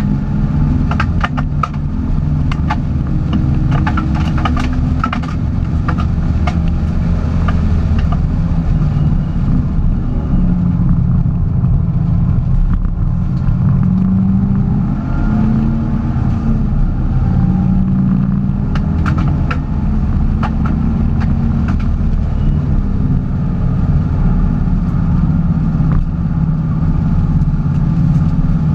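A Porsche being driven: steady engine and road noise whose pitch shifts up and down with speed, with scattered sharp ticks about a second to eight seconds in and again around twenty seconds in.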